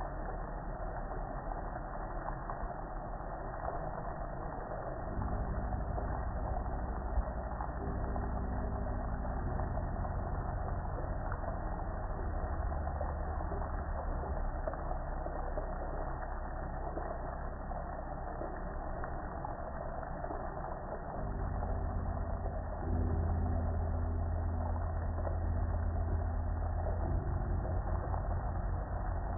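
A motor running steadily with a low hum over a steady hiss, getting louder about five seconds in and again near the end.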